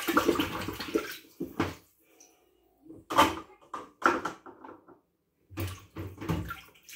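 Dishwater splashing and sloshing in a stainless-steel kitchen sink as dishes are washed by hand, in about five short bursts with quiet gaps between them.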